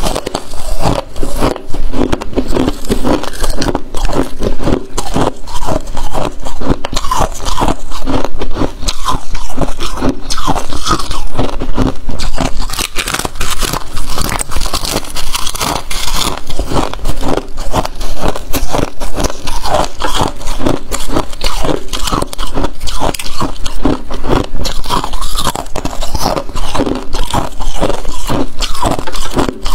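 Freezer frost being bitten and chewed close to a clip-on microphone: a dense, continuous run of loud, crisp crunches as the packed frost breaks between the teeth, with some scraping of the frost chunk in the hands.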